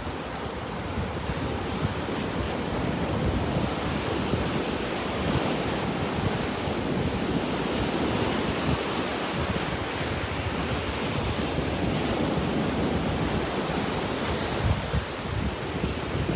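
Small surf breaking and washing up a sandy beach, a steady rushing hiss, with wind buffeting the microphone.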